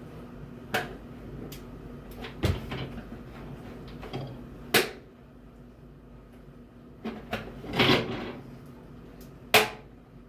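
Sharp clicks and knocks, about seven of them, scattered unevenly, from a microwave oven being handled and worked on with a screwdriver. A longer scraping knock comes near the end.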